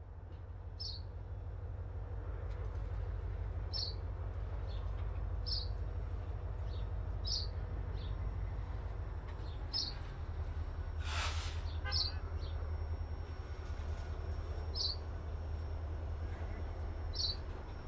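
Low, steady rumble of a CSX diesel locomotive shoving a heavy transformer flatcar at walking pace, growing louder over the first few seconds as the train nears. A small bird chirps every couple of seconds, and there is a brief hiss about eleven seconds in.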